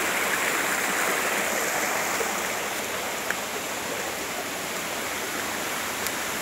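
Shallow rocky forest stream running and splashing over boulders: a steady rush of water that grows a little fainter after the first couple of seconds.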